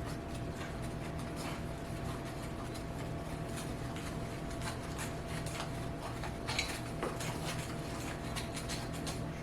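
Light clicks, taps and rubbing of kitchen utensils and dishes being handled, a few louder clicks about two-thirds of the way in, over a steady low hum.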